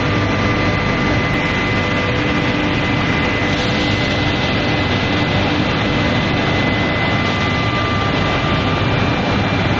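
Induction heating machine running in a workshop: a steady machine noise with several steady high whining tones over it.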